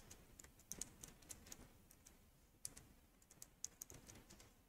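Faint computer keyboard keystrokes: a few scattered taps in small groups with pauses between, as a short filename is typed.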